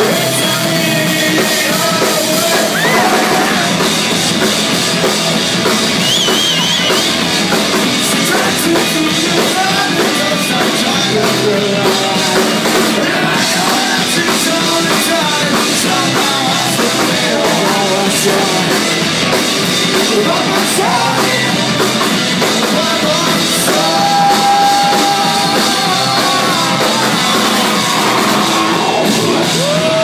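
Live rock band playing loudly: two electric guitars and a drum kit, with a sung lead vocal over them.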